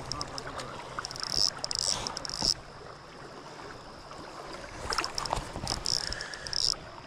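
Large fly reel ratcheting in two bursts of rapid high-pitched clicking, about a second in and again near the end, as line goes in and out on a hooked king salmon. River water washes against the boat underneath.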